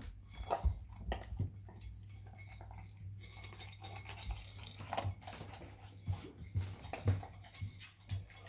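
Labrador puppy eating dry kibble from a bowl: irregular crunching and clinks of kibble and muzzle against the bowl, several a second.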